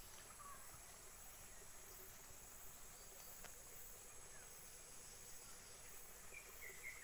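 Near silence: faint outdoor ambience with a steady high-pitched insect drone and a few faint bird chirps, a cluster of them near the end.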